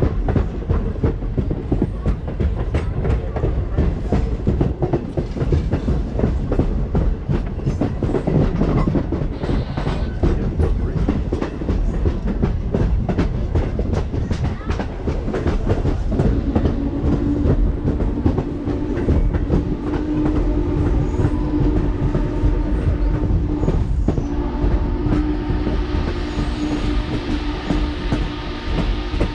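Passenger coach of a steam-hauled train rolling along the track, heard at an open window: a steady low rumble with a dense, continuous clicking of wheels over the rails. About halfway through, a steady low tone with overtones joins in and holds, with a brief break near the end.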